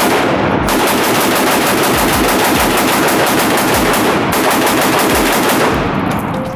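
Rapid gunfire, many shots a second in an almost unbroken stream, starting abruptly and tailing off near the end.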